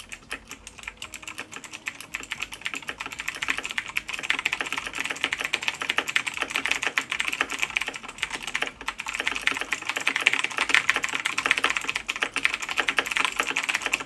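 Fast typing on a Razer BlackWidow Chroma mechanical keyboard with clicky Razer Green switches, the Razer equivalent of Cherry MX Blue. It makes a dense run of sharp, loud clicks that starts softer and grows louder after the first couple of seconds.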